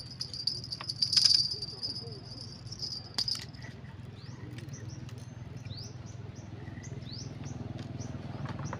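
A steady, high-pitched insect buzz that cuts off about three seconds in, then a series of short rising chirps, over a steady low hum.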